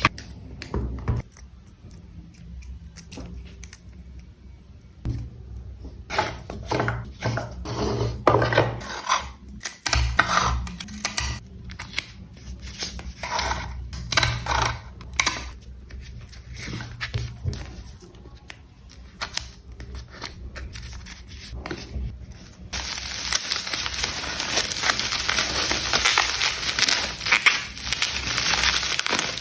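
Packaging being opened and handled: irregular rustling, tearing and crinkling. In the last several seconds it turns into a dense, continuous crinkling.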